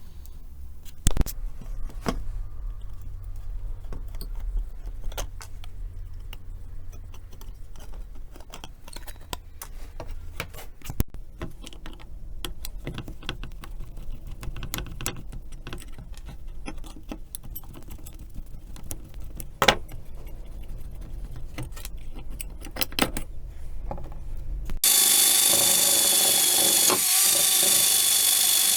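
Small metal parts clinking and tapping as they are handled and worked by hand, with scattered sharper knocks. About 25 s in, an electric power tool starts suddenly and runs steadily with a high whine.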